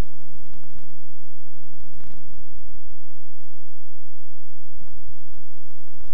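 Steady electrical hum and hiss of an old VHS soundtrack, with a faint swish about two seconds in.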